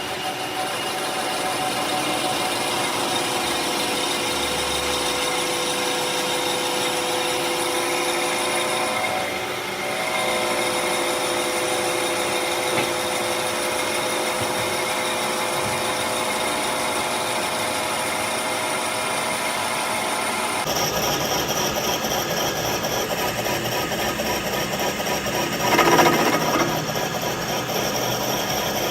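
A power tool running steadily. It dips briefly about a third of the way in, and its sound changes abruptly about two-thirds of the way in.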